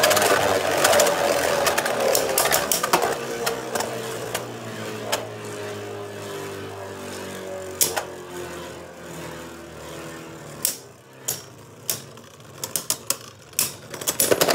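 Two Beyblade Burst tops, Victory Valkyrie and Dark Deathscyther, spinning on the plastic floor of a Takara Tomy B-09 stadium: a steady whirr whose pitch slowly falls as they lose speed. Sharp clacks as the tops strike each other, coming more often near the end.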